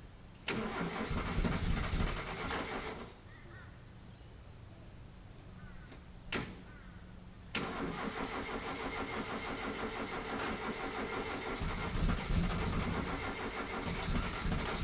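An old Toyota Hilux pickup's engine being started. A first try about half a second in runs for a couple of seconds and dies. A second try a little after six seconds in catches, and the engine keeps running steadily.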